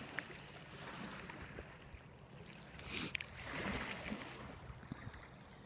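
Faint rush of the fast-flowing, flooded Mississippi River, swelling for a moment about three seconds in.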